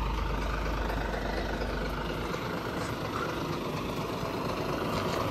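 Heavy lorry's diesel engine running with a low, steady rumble.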